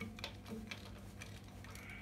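A few light, irregular metallic clicks and taps from a hand wrench working on bolts as they are loosened, over a steady low hum.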